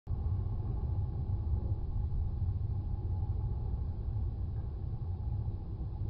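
Surf breaking and washing over a sea-rock ledge, a steady low rumble.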